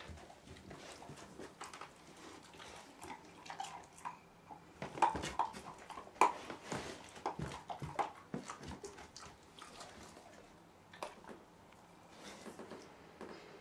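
Weimaraner puppy whining in several short, soft whines, hesitant about going down the stairs for the first time, with scattered light rustles and scuffs.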